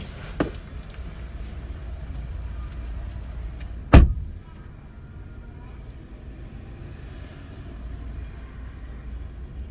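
A car door is shut with a loud single slam about four seconds in, with a lighter knock about half a second in, over a steady low rumble.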